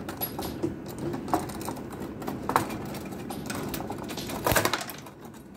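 A 1962 Munro table hockey game being played: the metal player rods rattle and click as they are pushed, pulled and turned, with scattered sharp knocks from the players and puck and a louder cluster of knocks about four and a half seconds in.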